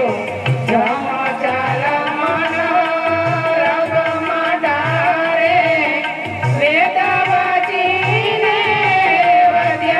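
Gujarati devotional bhajan music between sung verses: a steady tabla beat under a sustained, ornamented melody.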